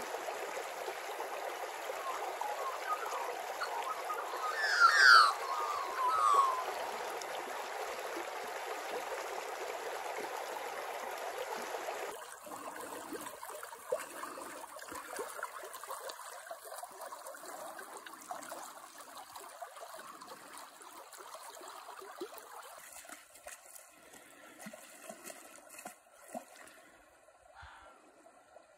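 Shallow river water running and trickling over stones. A bird calls with a short run of falling whistles about four to six seconds in, the loudest sound. After about twelve seconds the water is quieter, with small splashes and trickles.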